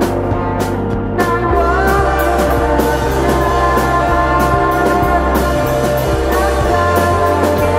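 Ambient alternative rock music: layered sustained instrument tones over a bass line that changes note twice, with repeated percussion hits. The arrangement grows fuller about a second and a half in.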